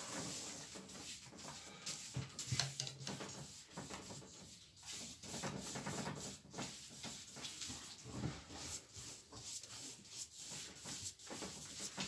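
A hand rubbing and smearing wet paint across paper on an easel, in irregular back-and-forth strokes.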